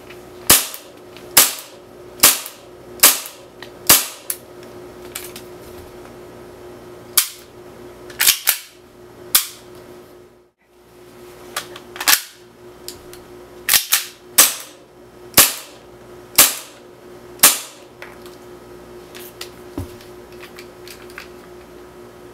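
Tokyo Marui Hi-Capa 5.1 gas blowback airsoft pistol firing single shots. Each shot is a sharp crack as the slide cycles, about seventeen in all, mostly a second or so apart with a few quick doubles, and a pause near the middle.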